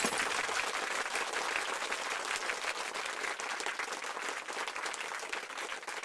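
Crowd applauding, many hands clapping steadily and slowly fading a little.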